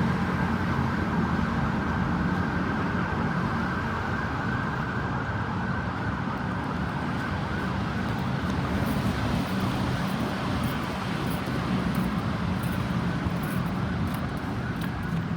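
Ambulance siren sounding over steady road traffic noise.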